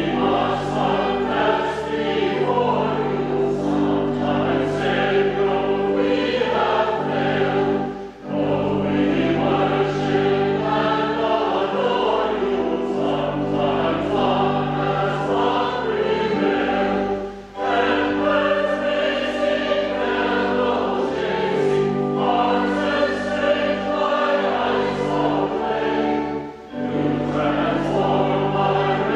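Choir singing a hymn in long sustained phrases, each broken by a short pause about every nine seconds.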